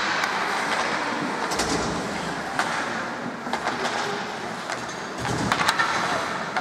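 Ice hockey play on the rink: skates scraping the ice, with several sharp clacks of sticks and puck and a couple of dull thumps.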